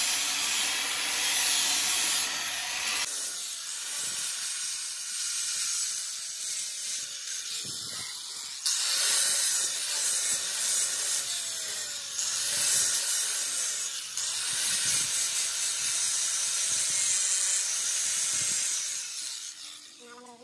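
Handheld angle grinder with an abrasive disc grinding the steel centre disc of a tractor wheel rim: a steady, high-pitched grind. It thins out about three seconds in, comes back louder about nine seconds in, and dies away near the end.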